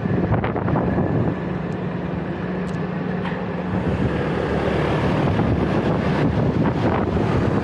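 Refrigerant recovery machine running steadily with a constant motor-compressor hum while it pulls refrigerant out of the AC circuit. A few light clicks come near the start.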